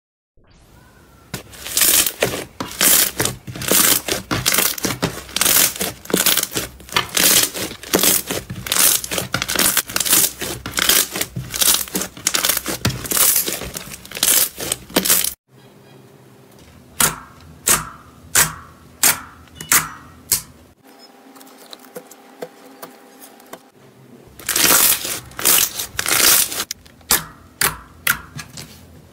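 Slime being stretched, squeezed and poked by hand, making sticky crackling and popping clicks. The crackling is dense at first, thins to separate pops about halfway through, and turns dense again near the end.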